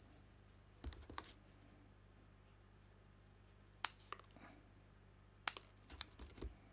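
A few light, sharp clicks and taps from handling small paper die-cuts and scissors on a craft mat. There is a group of them about a second in, single clicks around the middle, and a quick cluster near the end.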